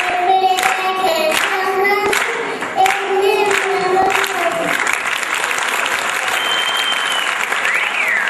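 A little girl sings held, wavering notes into a microphone. From about five seconds in, the audience applauds.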